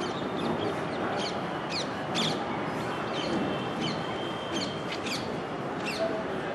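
Birds calling at dusk, a dozen or so short, sharp calls that fall in pitch, over a steady background din of city traffic.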